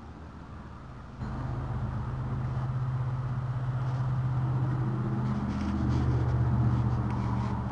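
A car engine running close by, starting abruptly about a second in as a steady hum that grows louder and shifts in pitch about six seconds in.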